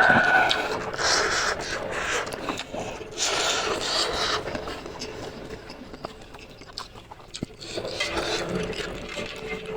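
Close-miked eating sounds of spicy instant noodles: two long slurps, about a second in and about three seconds in, then quieter mouth sounds.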